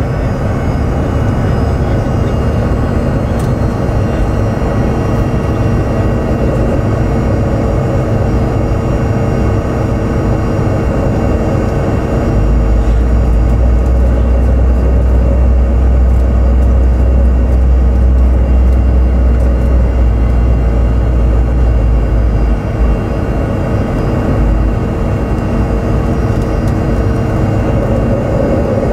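Cabin noise of a Fokker 100 taxiing, its rear-mounted Rolls-Royce Tay turbofans running at low thrust as a steady hum with a few held tones over a deep rumble. The rumble grows heavier for about ten seconds from around the middle.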